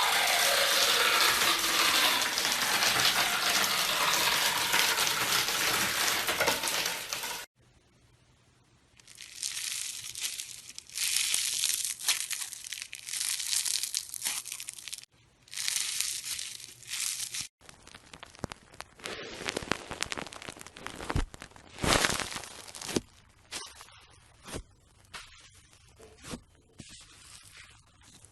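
Slime being squished and poked by hand, making crackling, crinkling and popping sounds. A dense, loud stretch of crackling cuts off abruptly after about seven seconds and is followed by shorter bursts separated by sudden stops, with a few sharp pops near the end.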